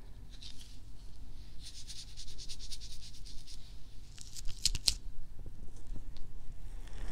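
Hand-made ASMR trigger sounds close to a binaural dummy-head microphone: a run of soft, crisp ticks, about ten a second, for a couple of seconds, then a few sharper crackles near the end.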